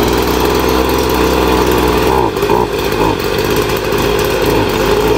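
Gasoline leaf blower running at speed, its engine note shifting and wavering from about two seconds in.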